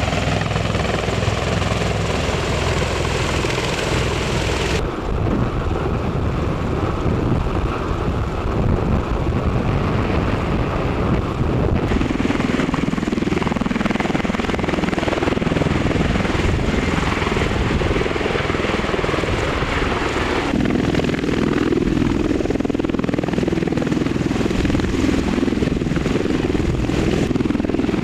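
MV-22 Osprey tiltrotor hovering low with a sling load, its rotors and turboshaft engines making a loud, steady, dense noise as the downwash blasts the ground. The tone of the noise shifts abruptly a few times.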